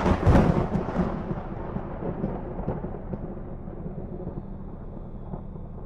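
A thunderclap sound effect: a loud crash at the start that rumbles and crackles away over the next few seconds, over a low steady drone.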